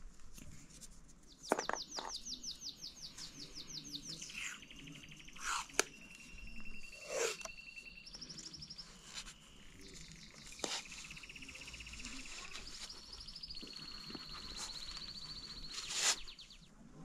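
A songbird singing long, even trills that step between several pitches, with a few sharp clicks mixed in.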